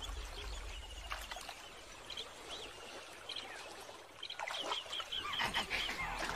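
Short chirping animal calls over a faint wild background. A few come about two and three seconds in, and they come thick and fast from about four and a half seconds on.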